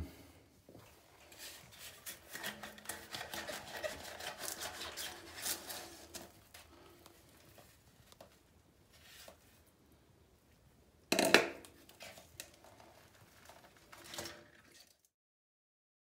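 Handling noises as a toilet's plastic offset pan connector is moved: a run of short scrapes and knocks, quieter for a few seconds, then one loud knock about eleven seconds in and a few small ones. The sound cuts off completely near the end.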